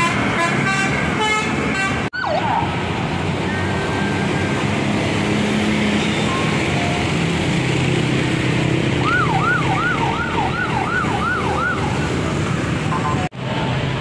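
Bus engines and street traffic running steadily, with a vehicle horn honking in quick repeated blasts at the start. About nine seconds in, a siren yelps, sweeping up and down about seven times in quick succession.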